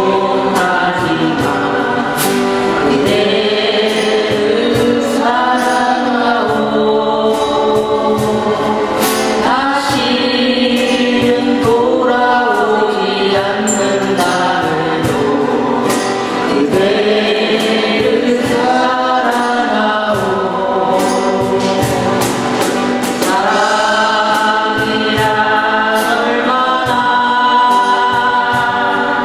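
Amplified acoustic guitars strummed with a cajon keeping a steady beat, under several voices singing a slow Korean ballad together.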